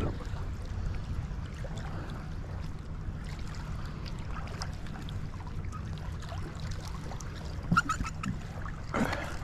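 Magnet-fishing rope being hauled in hand over hand through shallow water, over a steady low rumble. A few sharp knocks and clicks near the end, the loudest about eight seconds in.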